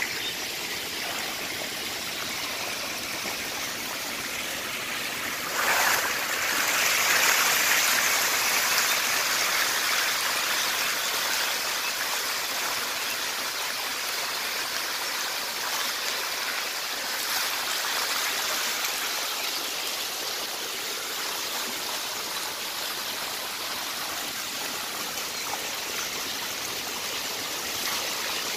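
Hundreds of desi magur catfish splashing and churning the shallow water of a crowded farming tank, a steady mass of splashing. It grows suddenly louder about six seconds in, then slowly settles back.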